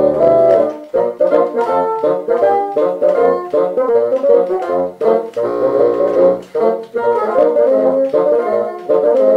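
Four bassoons playing together in harmony. A held chord ends about a second in, then the parts go on in quick, short, separated notes.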